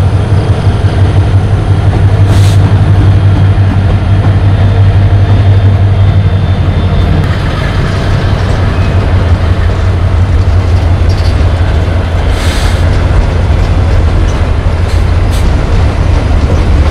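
Two CC 205 diesel-electric locomotives working in double traction, running past at close range with a long coal train: a steady low engine drone, with a few sharp clacks of wheels over the rails.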